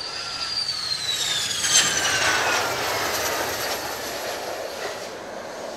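Mitsubishi F-2A fighter's F110 turbofan engine passing close by on landing approach. A high whine slides down in pitch over the engine's rush, loudest about two seconds in, then fading.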